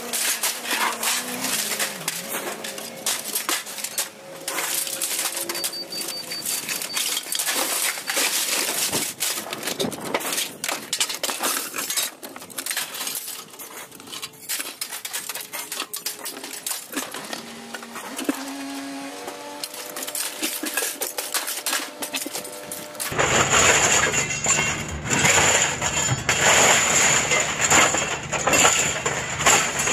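Scrap metal being unloaded and tossed, a dense irregular clatter of clanking and clinking pieces, some ringing briefly. About 23 s in, a steady low rumble with a high whine starts abruptly under the clatter.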